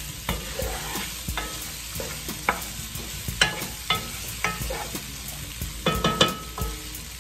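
Wooden spoon stirring diced potatoes and carrots sautéing on high heat in a pot, with irregular knocks of the spoon against the pot over a steady sizzle of frying. A louder cluster of knocks comes about six seconds in.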